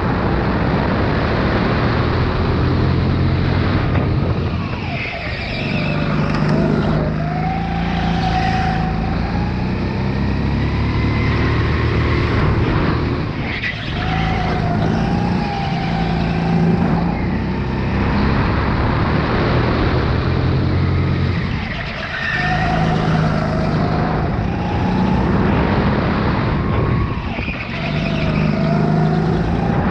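Sodi RX8 rental go-kart's single-cylinder four-stroke engine heard from on board at full throttle through a lap. It revs up along the straights and drops sharply four times as the driver lifts for the corners, then picks up again.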